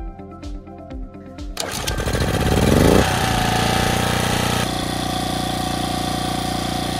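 Background music with a beat, then about a second and a half in a small Champion 80cc four-stroke generator engine starts, speeds up quickly, and settles into steady running, easing down a little partway through.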